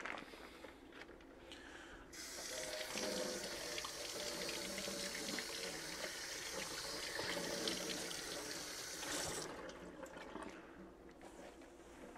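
Kitchen sink tap running over a slab of cured pork as it is rinsed, the water turned on about two seconds in and shut off about three seconds before the end.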